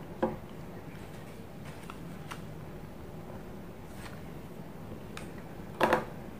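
Light handling noises: a few small clicks and ticks of a plastic earbud charging case and paper packaging on a wooden table. A louder, quick double clack comes near the end as the case is picked up or handled.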